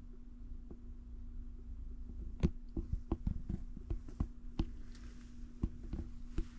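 Handling noise: scattered light clicks and knocks, most of them from about two and a half seconds in, over a faint steady hum.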